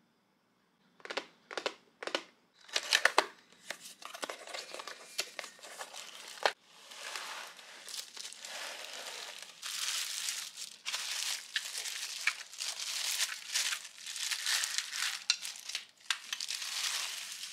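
Hands knocking and handling a cardboard box, with a few sharp taps. Then, after about six seconds, a clear plastic bag crinkles and rustles steadily as it is handled and opened around a plastic bathroom scale.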